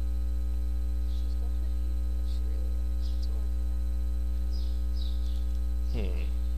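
Steady electrical mains hum with evenly spaced overtones, the loudest thing throughout. Faint murmured words come now and then, and a voice starts briefly about six seconds in.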